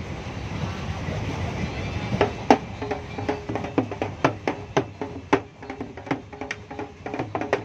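A low rumble, then from about two seconds in a rhythmic beat of sharp knocks, about three a second, keeping on to the end.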